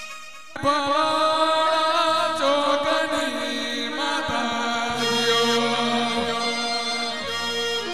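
Gujarati devotional regdi song to the mother goddess: after a brief pause about half a second in, a voice holds a long, drawn-out chanted line with a slow waver over sustained accompaniment, without the drum beat.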